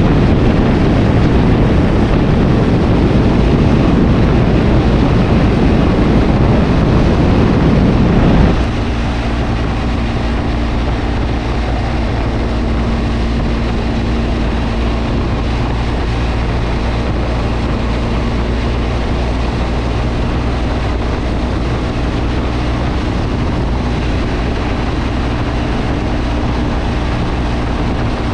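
Motorcycle riding at speed, with heavy wind and road rush over a steady engine drone. About eight seconds in, the wind noise drops off suddenly, leaving the engine's steady hum plainer.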